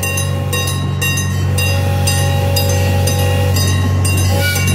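Railroad crossing bell ringing about twice a second over the steady low rumble of the zoo train's engine.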